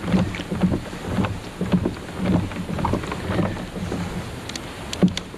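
Wind rumbling on an action camera's microphone, with scattered knocks and small splashes as a small brown trout is lifted from the water and handled.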